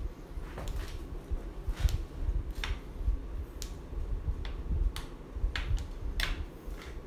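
Irregular light clicks and taps, about a dozen, from small objects being handled on a work table, over a steady low rumble.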